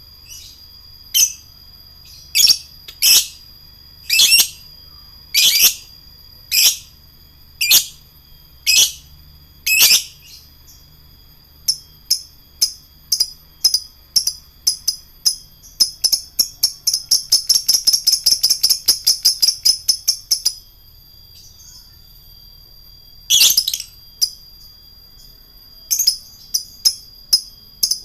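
Lovebird calling: sharp, shrill chirps about once a second, then a few light clicks, then a fast chattering trill lasting about four seconds, the long 'ngekek' chatter. Brief calls and another quick burst of chatter follow near the end.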